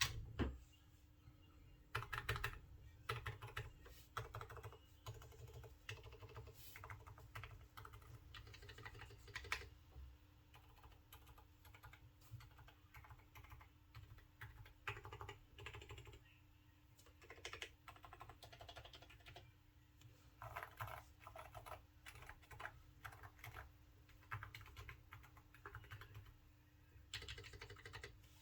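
Typing on an AKKO Mod004 mechanical keyboard with Kailh silent box brown switches: quiet, dampened keystrokes come in bursts of rapid typing separated by short pauses.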